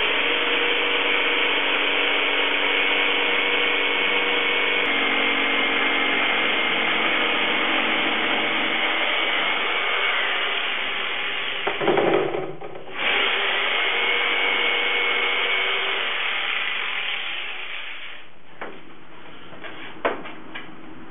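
Jigsaw running and cutting through the top of a plastic barrel, with a steady motor whine. It stops briefly about twelve seconds in, runs again, and cuts off a few seconds before the end, leaving a few light knocks.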